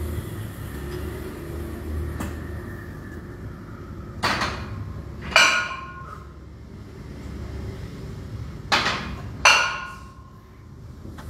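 Metal gym weights clanking: two pairs of sharp, ringing metal clanks, the first pair about four seconds in and the second near nine seconds, over a low steady room hum.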